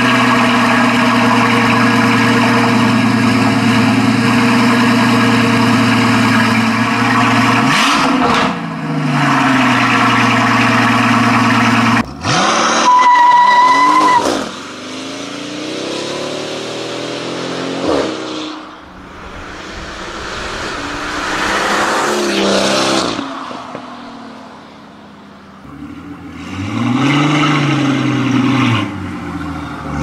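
Mercedes-AMG S65's twin-turbo V12 on a catless exhaust with its valves open, running at a steady fast idle on a cold start. After about twelve seconds the car accelerates hard, its revs sweeping up and down through the gears as it comes past and fades away. A single rev rises and falls near the end.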